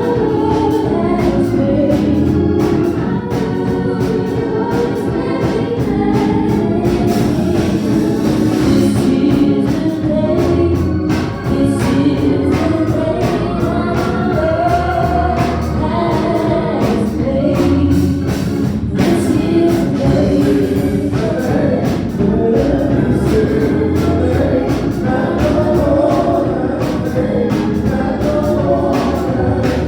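Gospel choir singing with a band, over a steady drum beat and bass line.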